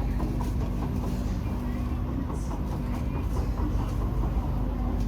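Inside a Kawasaki–Nippon Sharyo C751B metro car running between stations: a steady rumble and a low hum, with repeated irregular knocking. The rider is quite sure the knocking is not caused by flat wheels.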